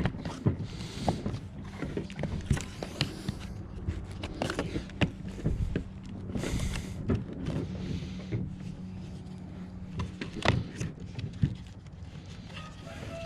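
Hands working on a steering wheel: irregular plastic clicks and knocks and brief rustles as parts and wiring are fitted, over a steady low hum, with one louder knock about ten seconds in.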